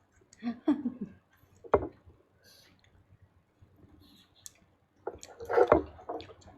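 Scattered sharp clicks and knocks, loudest in a cluster about five seconds in, with a brief snatch of a voice in the first second.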